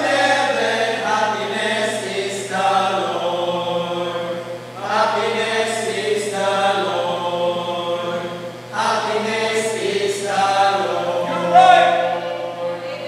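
Small male vocal group singing a gospel hymn unaccompanied, in phrases of a few seconds with short breaks for breath; the last phrase swells and then fades near the end.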